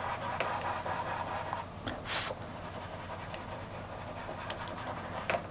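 Fingertips rubbing soft pastel into textured pastel paper, a steady soft scratchy rubbing, with a short breath about two seconds in.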